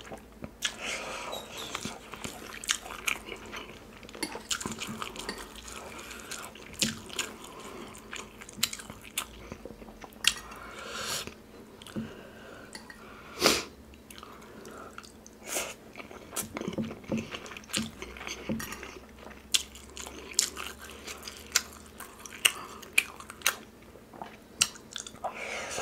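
Close-miked chewing and biting of food, with wet mouth smacks and irregular short clicks.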